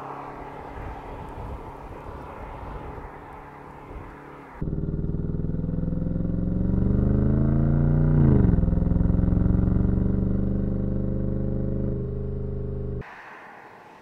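BMW M850i xDrive Gran Coupe's 4.4-litre twin-turbo V8 running as the car drives. A little over four seconds in, a much louder engine sound cuts in and rises in pitch under acceleration. Its pitch drops sharply at an upshift, climbs again, then cuts back to the quieter engine and road sound about a second before the end.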